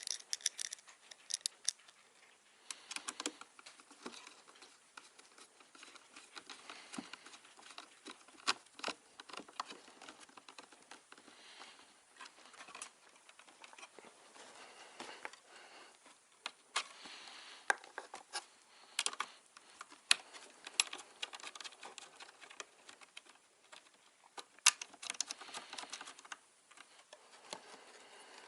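Irregular light clicks, taps and rustles of hands handling small hard parts and tools in a small room, with no steady rhythm.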